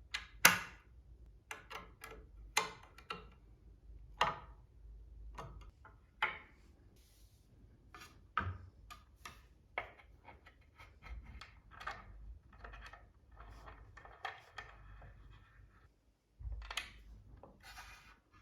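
Solid pine bed boards and wooden dowels being handled and set down: irregular sharp knocks and clatters of wood on wood, the loudest about half a second in, with some rubbing and scraping in between.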